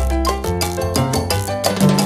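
Upbeat Latin-style background music with a steady percussive beat and a bass line.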